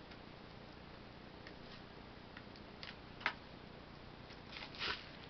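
Hands working at the plastic wrapping and case of a music CD: scattered light clicks, a sharper click about three seconds in, and a short crinkling rustle near the end.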